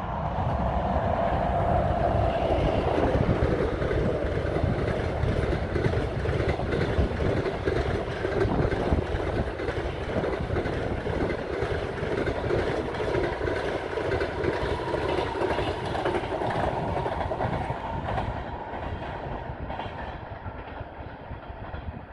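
An EP2K electric locomotive and its passenger coaches passing. The sound swells in about the first second, and the wheels clatter over the rail joints as the coaches run by. It slowly fades as the train draws away.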